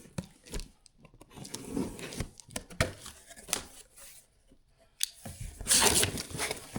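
Vacuum cleaner's cardboard shipping box being opened by hand: scattered clicks and rustles of cardboard and packing, then a louder tearing and rustling stretch about five seconds in that lasts over a second.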